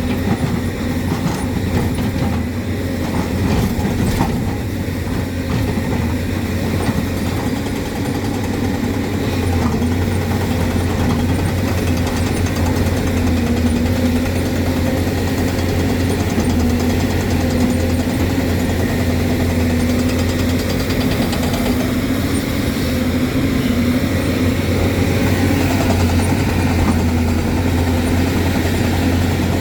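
Diesel engine of a Hyundai excavator running steadily under work, with a few sharp knocks in the first several seconds.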